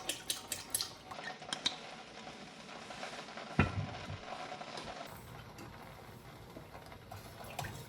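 A utensil clinking quickly against a bowl as something is stirred, for about the first second, then a single sharp knock about three and a half seconds in, followed by faint kitchen noise.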